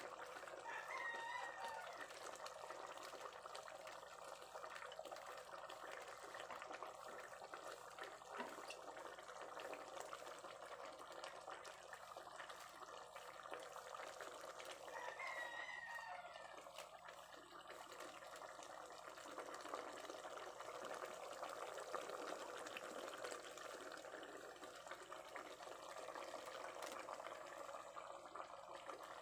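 Pot of pork humba simmering, its sauce bubbling with a faint, steady hiss. Twice, about a second in and again about fifteen seconds in, a short pitched call rises and falls over it.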